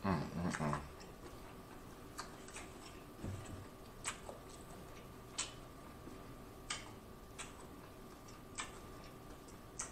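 Close-miked eating of saucy seafood boil: wet lip smacks and sharp mouth clicks about every second or so, with a short hummed "mmm" at the very start. A faint steady hum runs underneath.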